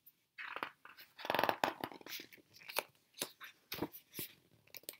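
Quiet paper rustling and crinkling from a picture book's pages being turned: a string of short, irregular rustles.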